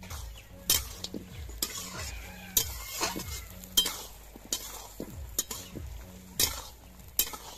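Metal spatula scraping and knocking against an iron kadai as a thick curry is stirred, about one sharp stroke a second, with the curry sizzling in between.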